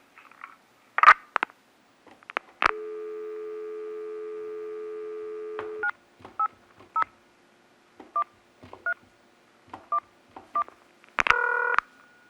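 Telephone handset clicks, then a steady landline dial tone for about three seconds that cuts off when the keypad is used: seven short DTMF touch-tone beeps, one per dialled digit, spaced unevenly. Near the end comes a click and a brief, louder burst of tones.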